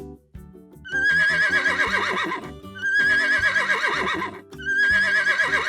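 A horse whinnying, the same quavering neigh heard three times about two seconds apart, each lasting about a second and a half.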